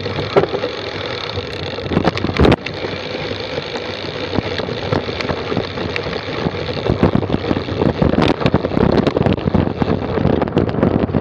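Mountain bike's rear drivetrain, chain and SRAM X9 rear derailleur, rattling and slapping while riding over a rough dirt trail, over a steady rush of rolling noise. Frequent sharp clicks and knocks, one heavy knock about two seconds in, and the rattling grows busier in the second half.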